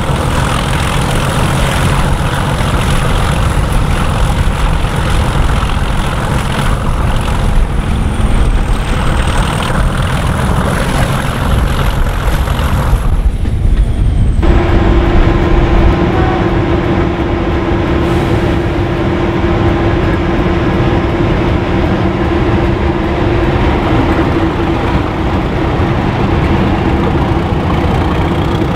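Brush Type 2 / Class 31 diesel locomotive's English Electric 12SVT V12 engine running, a heavy continuous engine sound. About halfway through the sound changes abruptly and a steady hum holds to the end.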